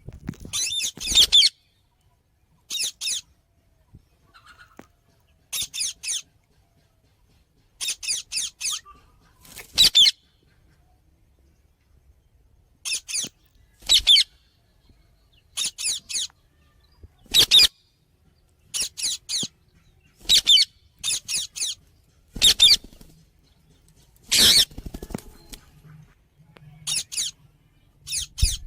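A parrot giving short, high-pitched chirping calls in quick runs of two to four notes, repeated every second or two with short pauses between.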